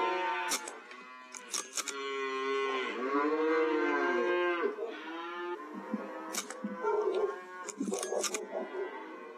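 Cattle mooing: a run of long, drawn-out calls that rise and fall in pitch, punctuated by several sharp clicks.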